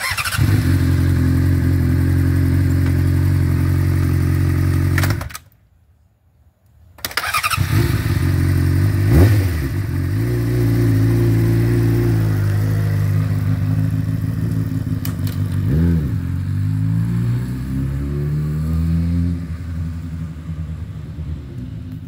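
Honda CBR600 inline-four engine running on a motorcycle: steady idle, a break of about two seconds, then running again with revs rising several times, and fainter near the end.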